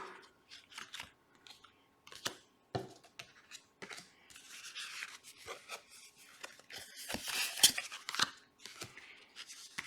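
Tarot cards being flipped through by hand: a run of short papery snaps and scratches as cards slide past one another, thickest about seven seconds in.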